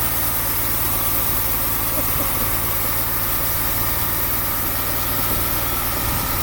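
Sawmill engine running steadily at an even speed, with a constant low hum under a dense hiss.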